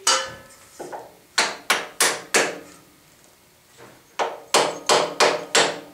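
Sharp hammer blows on a 10 mm steel bolt, driving it through the bandsaw's steel motor-bracket mount where the bolt fits tight. Each blow rings briefly, about eleven in two quick runs with a pause between.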